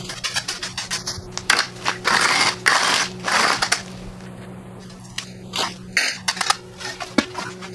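Trowel scraping across fresh wet concrete on an old concrete floor, pushing off and smoothing the excess. Several longer scraping strokes in the first half give way to shorter, sharper scrapes and taps later on.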